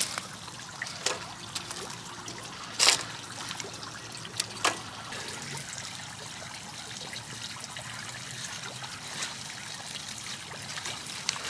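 Garden pond fountain trickling steadily, with a few sharp clicks over it, the loudest about three seconds in.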